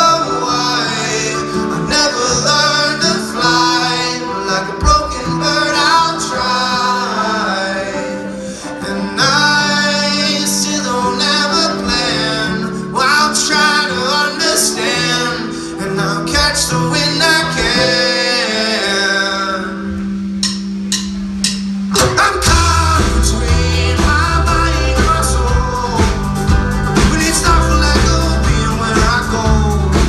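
Live rock band playing a song, with a male lead voice singing over acoustic and electric guitars, banjo, bass and drums. Past the two-thirds mark the band briefly drops back, then comes in fuller with heavy bass and drums.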